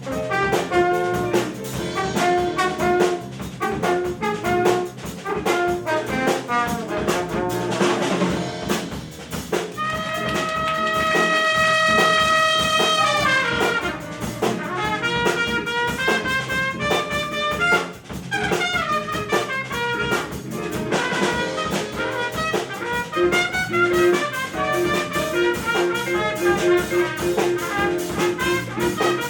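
Jazz-funk big band playing live: brass section with trumpets and trombones over a drum kit. About ten seconds in, one long note is held for several seconds and then falls away in pitch, before the band's busier lines return.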